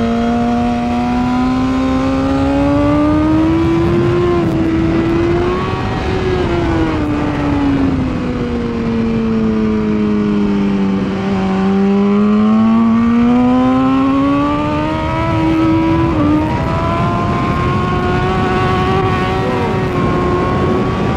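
2016 BMW S1000RR's inline-four engine at race pace, with wind rush underneath. Revs climb over the first few seconds, with a quick gear change about four seconds in, then fall away smoothly for several seconds. They climb again to another gear change about sixteen seconds in and hold high.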